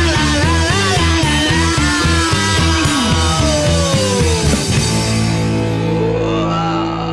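Rock music with distorted electric guitar and drums. The drums and rhythm stop about five seconds in, leaving a final chord ringing.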